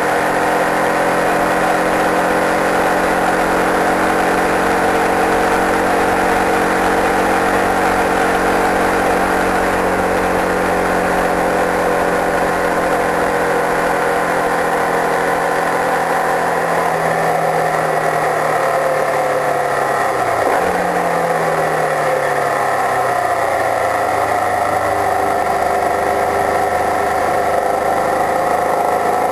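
Open-wheel racing car's engine running at steady high revs with a rushing wind and road noise. After about 16 seconds the engine note falls, jumps up sharply at a gear change just past 20 seconds, then falls again before levelling off.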